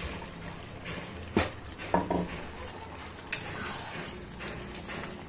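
Steel spoon stirring fish curry in a metal kadai, clinking and knocking against the pan. There are a few sharp metallic knocks, the loudest about a second and a half and two seconds in, one ringing briefly.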